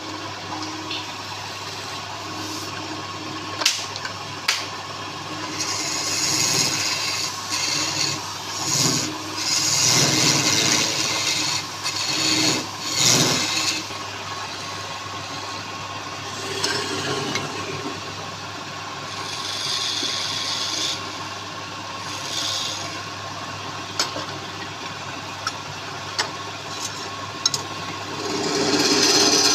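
Wood lathe running with a steady hum while a tool works against the spinning wood in uneven bursts of scraping, with a few sharp clicks.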